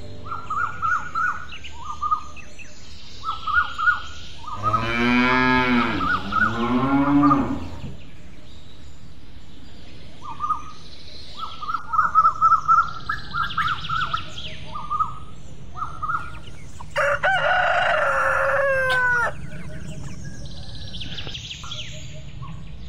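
Farm animal sounds: a cow mooing in two long calls about five seconds in, amid repeated clusters of short high bird chirps. Later comes another drawn-out animal call.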